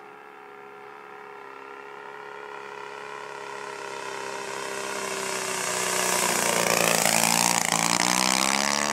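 Giant-scale radio-controlled Cessna 182 model's 85 cc four-stroke engine running steadily as the plane flies in, growing louder, then passing low near the end with its pitch dropping as it goes by.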